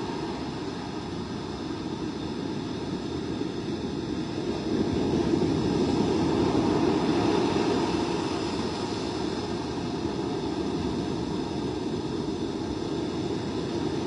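Heavy storm surf breaking on the shore: a steady low rush of waves, swelling louder for a few seconds midway as a big wave breaks.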